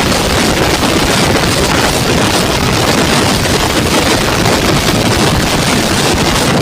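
Bajaj Pulsar 220 motorcycle ridden at high speed: heavy, steady wind rush on the microphone with the engine running underneath.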